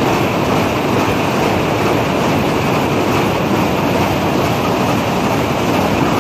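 Egg-processing machine running: a steady, dense clatter of many eggs rolling and knocking against each other along its roller conveyor, over the drone of the machine's drive.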